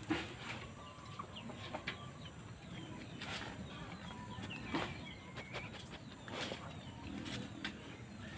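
Chickens clucking, with a few sharp knocks and short high chirps scattered through.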